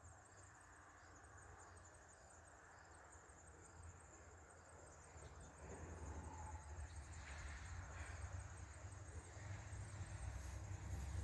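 Faint crickets chirring in a steady high trill, with a low rumble rising from about halfway through and growing louder toward the end.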